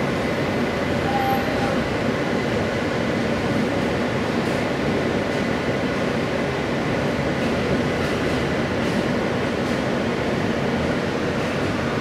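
New York City subway train running: a steady rumble and rail noise heard from inside the car, with another train moving alongside on the next track.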